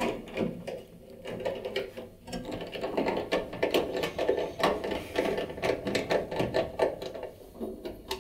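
Hand screwdriver driving screws back into a tumble dryer's sheet-metal side panel: a dense run of small clicks and rasps from the tool and the screw threads, busiest from about two and a half seconds in until near the end.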